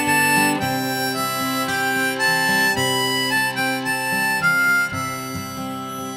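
Background music: a melody of held, reedy notes on a free-reed instrument, changing pitch about every half-second over a steady lower accompaniment.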